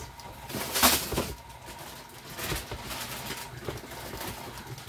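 KitchenAid stand mixer running, its beater churning a heavy sausage-and-baking-mix dough in a glass bowl, with a steady motor whine over an uneven low churning. A loud sharp clatter comes about a second in, with a few lighter knocks later.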